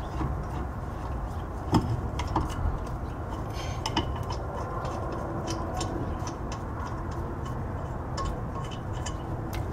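Scattered light metallic clicks and clinks from handling metal parts at a car's bare wheel hub, with a louder knock about two seconds in, over a steady low rumble.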